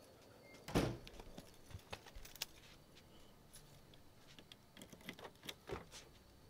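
Door and key handling noises: a knock about a second in, then scattered light clicks and rattles.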